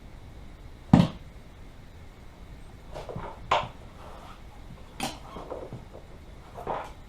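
Irregular knocks and clanks of hand work on a go-kart wheel as a tire is changed by hand: one sharp knock about a second in, the loudest, then lighter knocks and scrapes around the middle and near the end.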